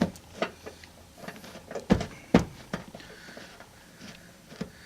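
Handling noise of refitting a seat-mounting bolt through freshly laid carpet: a string of short knocks, clicks and rustles, the two loudest close together about two seconds in.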